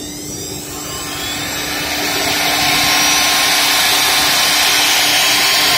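CNC wood-turning lathe machining a spinning wooden workpiece: a steady motor hum under a hissing cutting noise that builds over the first two to three seconds and then holds loud and even.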